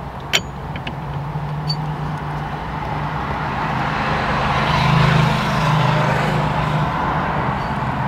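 A car's engine hum and road noise from a vehicle outside, swelling about four to six seconds in as it passes, then easing off. One sharp click just after the start comes from the wrench on the steering hub nut.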